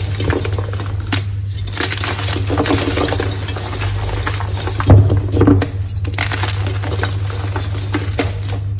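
Reformed gym chalk being crushed and crumbled: a dense, steady crackle of small crunches, with a louder crunch about five seconds in.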